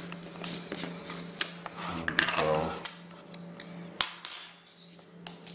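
Plastic supplement tubs, lids and a shaker cup clicking and knocking on a granite countertop as a drink is mixed. About four seconds in comes a sharp clink with a brief high ring.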